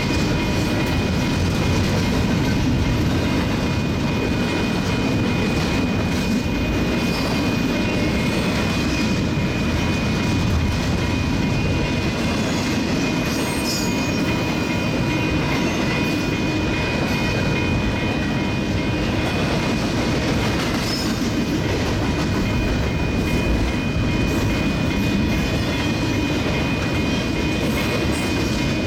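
Freight cars of a double-stack container train rolling steadily past, a continuous rumble of steel wheels on rail with clickety-clack. A thin, steady high-pitched tone rings over it throughout.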